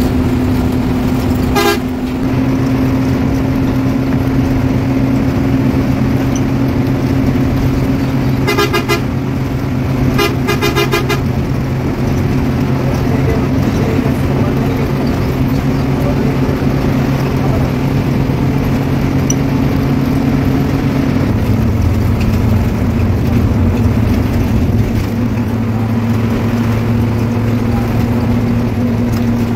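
Coach engine running steadily at speed, heard from the front of the cab, its note shifting about two-thirds of the way through. A short horn blast sounds near the start, then two longer blasts a little past the first third.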